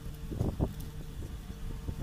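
Soft knocks and rubbing from a plastic Mini 4WD chassis and parts being handled, over a steady low hum. Two soft knocks come about half a second in.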